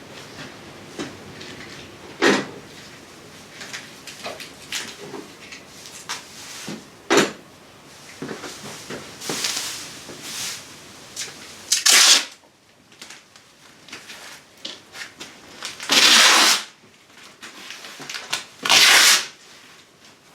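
Masking work on a car body: plastic sheeting rustling and being handled, with short clicks and three loud rasping strips of masking tape being pulled off the roll, each under a second long, about midway and twice near the end.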